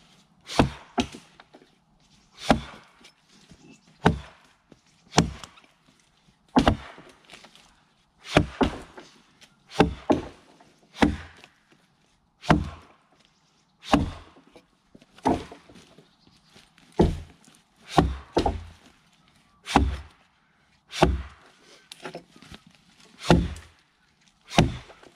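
Axe chopping into a felled log: a steady run of sharp wooden strikes about a second and a bit apart, now and then two in quick succession.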